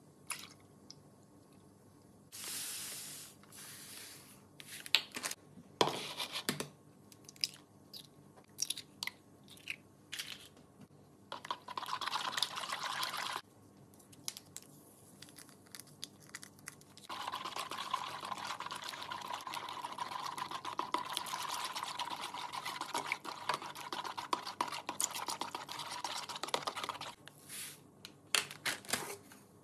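Kitchen food-preparation sounds: scattered clicks, taps and clinks of utensils and containers, a couple of short rustling or pouring stretches, and a longer steady swishing lasting about ten seconds in the second half.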